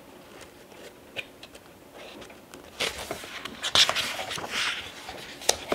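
Magazine pages being turned by hand: paper rustling for about two seconds starting around three seconds in, after a few faint taps, with a sharp click near the end.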